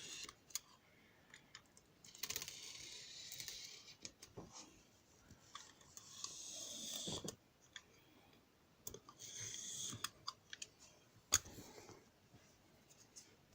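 Cardboard packaging being handled and worked open around its edges: scattered light clicks and taps with a few short bouts of scraping and rustling.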